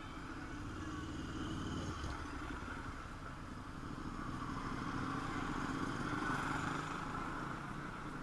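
Motor vehicles passing on a road, the engine-and-tyre noise swelling about two seconds in and again, louder, around six seconds in.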